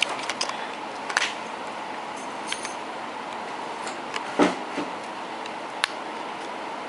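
Light clicks and clinks of small tools being handled on a phone-repair bench. A few sharp taps are scattered through, the clearest about four seconds in, over a steady background hiss.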